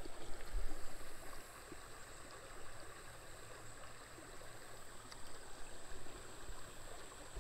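Shallow creek water flowing, a low, steady trickling hiss.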